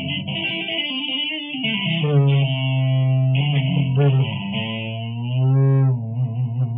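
Electric guitar played through effects with distortion: a lead line of held notes, some wavering and bending in pitch.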